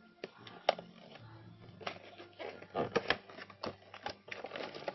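Action figure's cardboard window box and plastic blister tray being handled and pulled open by hand: scattered clicks, taps and plastic rustles, the busiest stretch about three seconds in.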